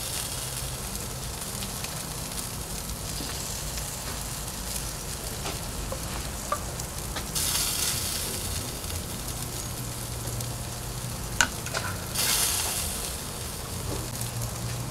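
Sauced ribs sizzling on a hot barrel grill, a steady hiss. The sizzling flares up louder about seven seconds in and again near twelve seconds as barbecue sauce is brushed on, with a few light clicks.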